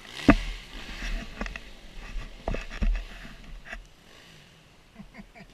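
Several sharp knocks and thumps over a low rumble, which dies away about four seconds in, followed by a few faint clicks.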